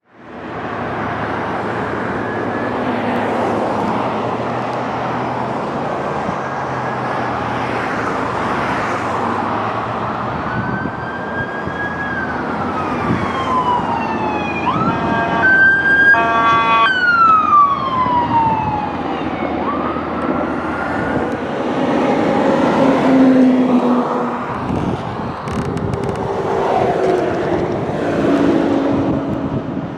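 Sheriff's patrol vehicle siren wailing up and down, with an air horn blast lasting about a second and a half near the middle, over steady road noise.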